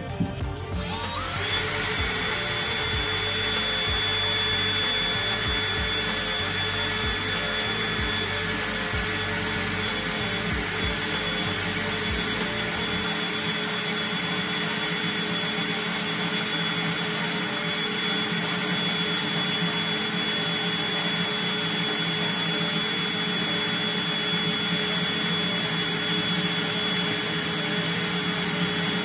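DeWalt DCD778 18 V brushless cordless hammer drill set to gear 1, its low-speed range, running steadily under load as the bit bores into a steel square tube. A steady motor-and-gearbox whine with a thin high tone over it, starting about a second in and holding an even speed.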